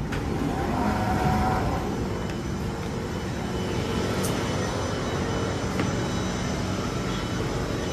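Singapore MRT Circle Line train running, a steady rumble with faint motor tones and a slight swell about a second in.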